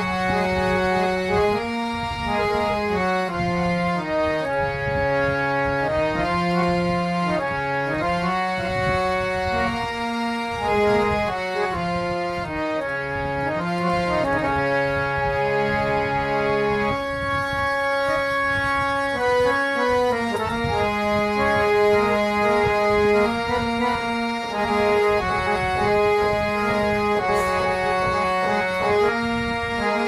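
Instrumental background music: a melody of held notes moving over sustained bass notes.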